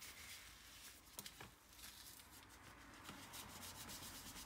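Faint rubbing of a paper tissue as it is folded and wiped over a laptop's CPU and heatsink to clean off old dried thermal paste, with a couple of light clicks about a second in.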